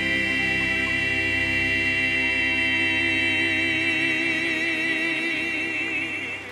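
Male southern gospel quartet holding the closing chord of a song in close four-part harmony, the voices wavering with vibrato, then cutting off together at the very end.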